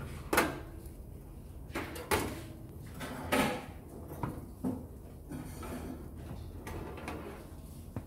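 Metal baking pan knocking and scraping against the wire rack of a countertop electric oven as it is slid out. There are about half a dozen separate knocks and scrapes, the sharpest less than half a second in and a longer scrape a little past three seconds.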